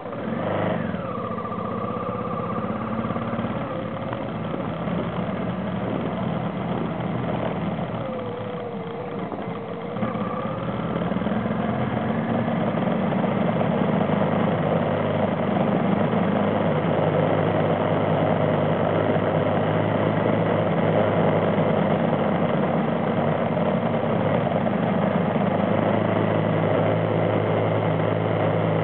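Off-road vehicle's engine running while driving. Its pitch falls in the first second, dips and comes back up about a third of the way in, then holds steady and a little louder for the rest.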